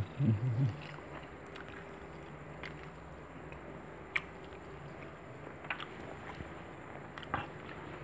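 A person eating: faint chewing and a few short clicks of food and utensils, over a steady low hum. A brief low vocal hum from the eater comes at the very start.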